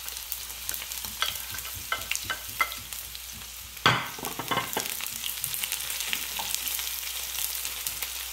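Diced onion sizzling in hot oil in a frying pan, stir-fried fast on high heat to drive the moisture out. A spatula scrapes and clicks against the pan, with one loud knock about four seconds in.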